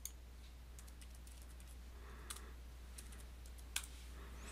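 Computer keyboard keystrokes: a handful of separate, scattered clicks as login credentials are typed in, over a low steady hum.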